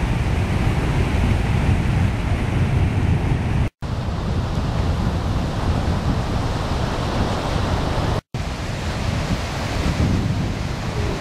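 Wind buffeting the microphone as a heavy low rumble over the wash of surf on a beach. The sound drops out for an instant twice, about a third and three-quarters of the way through.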